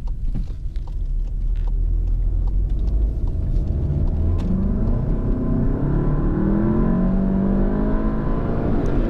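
Volkswagen GTI's turbocharged 2.0-litre four-cylinder engine under way with road rumble, heard from inside the car. From about four seconds in the engine note climbs as the car pulls harder, and it stays up to the end.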